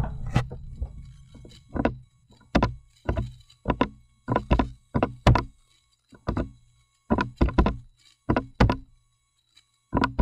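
Buttons being pressed on a handheld calculator as an expression is keyed in and values are stored: a series of sharp taps at an uneven pace, one or two a second, some in quick pairs.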